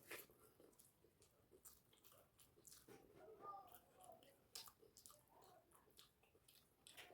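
Faint chewing with scattered wet mouth clicks and smacks as someone eats a meal of rice and curry.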